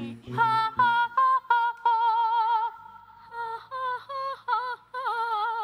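A high singing voice doing vocal warm-up exercises: runs of short, clipped notes on much the same pitch, then longer notes held with a wide, quick vibrato.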